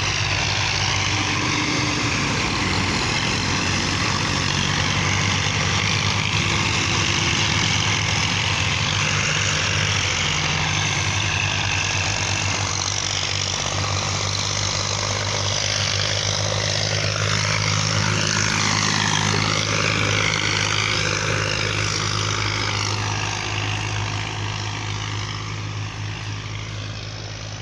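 Massey Ferguson 240 tractors' three-cylinder diesel engines running steadily under load as they pull loaded trolleys along the road, fading near the end as they move away.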